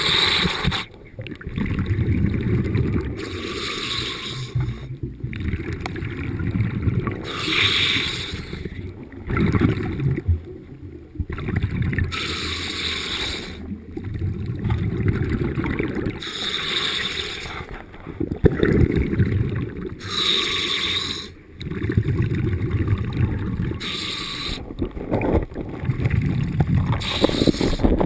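A scuba diver breathing through a regulator underwater. There is a hissing inhalation about every four seconds, with the low bubbling rumble of exhaled air between them.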